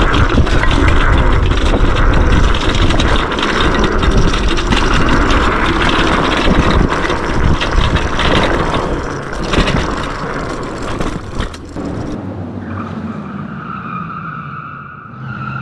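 Yume X11 electric scooter riding fast over a dirt trail: heavy wind buffeting on the microphone and tyre rumble. About twelve seconds in, the rush drops away as it slows, leaving a steady high whine.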